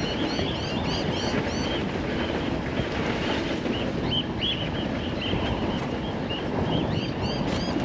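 A vehicle driving along a rough dirt track, with steady wind noise buffeting the microphone. Quick, high, arching chirps repeat throughout.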